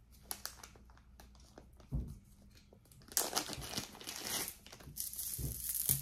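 Jewelry packaging being handled and unwrapped: a few light clicks, then steady crinkling from about halfway through, with a couple of soft thumps.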